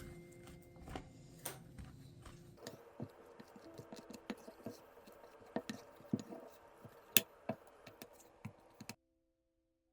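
Scattered light clicks and taps of kitchen utensils and bowls being handled, with one sharper click about seven seconds in. The sound cuts out completely for about a second near the end.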